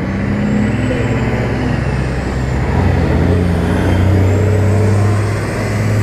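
Semi-trucks passing close by on the road: a steady low diesel engine drone that swells to its loudest about four to five seconds in as a truck goes past.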